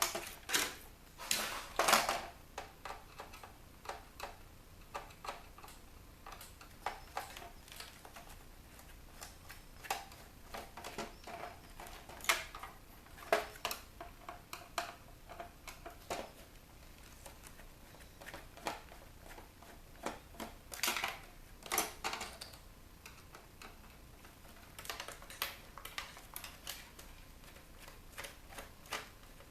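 Small screws being undone by hand from a CD changer's circuit board: a scatter of irregular small clicks and taps of the screwdriver, screws and plastic parts, with louder clatters near the start, about halfway and about two-thirds through.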